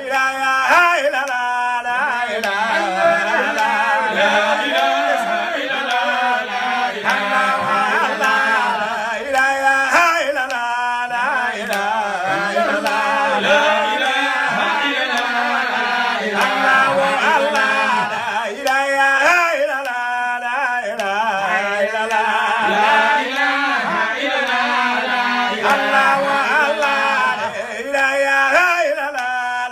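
Men's voices chanting an Islamic devotional song in Arabic, with long, wavering held notes and no clear drumming.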